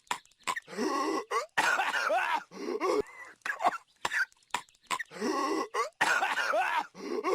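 A cartoon character's voiced coughing, repeated over and over: short single coughs between two longer, drawn-out hacking fits with a wavering pitch.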